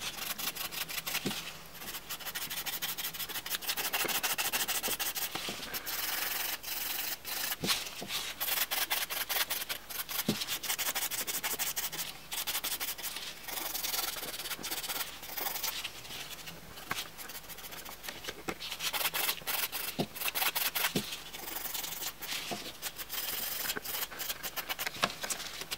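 Hand nail file rasping against the sides of a gel nail extension in quick back-and-forth strokes, narrowing the nail.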